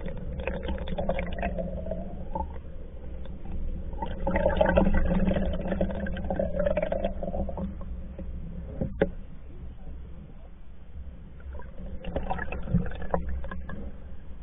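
Water rushing and gurgling along the hull of a Hornbeck pack canoe under way, heard muffled through an underwater camera housing. The noise swells and fades in three surges over a steady low rumble, with one sharp click about two-thirds of the way through.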